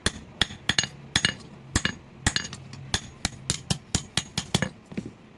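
Hand-forging: a hammer striking steel on an anvil in quick, uneven blows, about four a second, each with a bright metallic ring. The blows stop shortly before the end.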